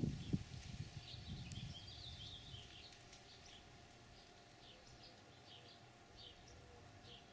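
Wind gusting on the microphone in the first two seconds, with high bird twittering. Then a small bird's short, high chip notes, repeated a little faster than once a second.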